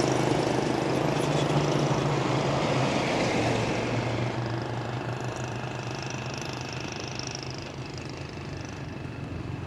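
A road vehicle's engine running steadily, fading as it moves off, then growing louder again near the end.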